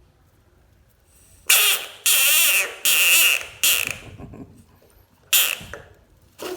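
Bullfrog screaming: loud, harsh, rasping scream calls, four in quick succession starting about a second and a half in, then one more shorter scream near the end.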